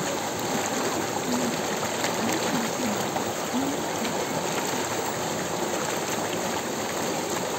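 Shallow, fast stream rushing over rocks: a steady hiss of running water.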